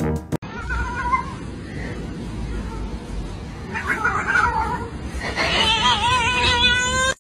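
A cat meowing: a short meow about a second in, a longer wavering one around four seconds, and a long, loud, drawn-out yowl near the end.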